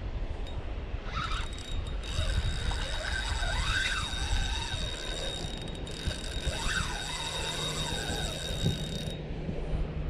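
Spinning reel whirring with rapid fine clicks while a large red drum is played on the line, the pitch rising and falling twice as the fish pulls.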